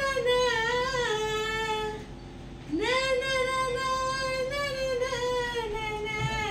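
Long, wordless howled notes from a single voice: the first wavers and slides down, stopping about two seconds in, and after a short pause a second howl swoops up and is held, wavering slightly, for over three seconds.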